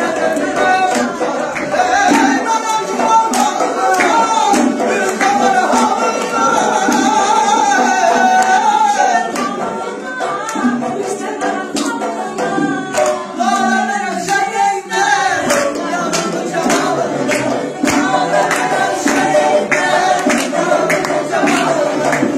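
Dance music: a song with a singer over instruments and a steady, regular beat of hand percussion.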